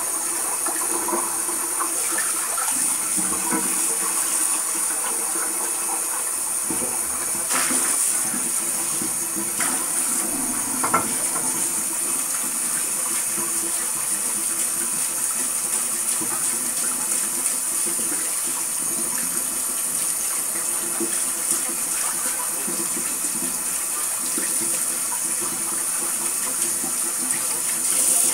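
Water running steadily, with a couple of small knocks.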